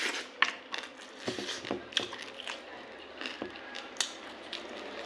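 Close-miked eating sounds: irregular crunches and wet mouth clicks of someone chewing food, with louder ones about half a second, two seconds and four seconds in.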